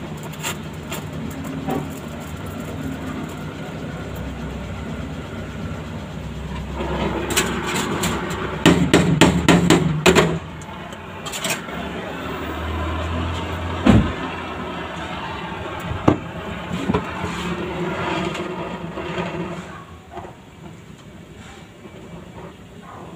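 Stick (arc) welding on a car's sheet-metal floor pan: a steady crackle from the arc. In the middle comes a run of sharp clicks and knocks of metal on metal as the electrode is handled. The loudest knock falls a little past halfway.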